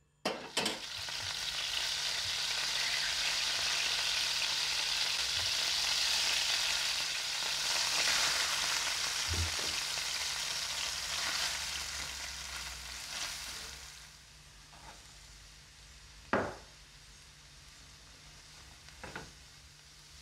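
Chopped onion and garlic frying in melted margarine in a nonstick pan: a loud, steady sizzle that starts suddenly, then dies down about fourteen seconds in to a quieter sizzle. Two or three sharp knocks are heard near the end.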